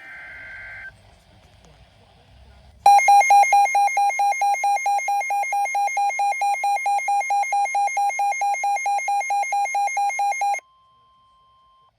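The end of an Emergency Alert System SAME header data burst, a shrill two-tone digital screech, for about the first second. After a short pause comes a loud electronic alert siren beeping at about four pulses a second for nearly eight seconds. It plays over the steady 1050 Hz NOAA warning alarm tone, which is heard faintly on its own for about a second after the siren cuts off.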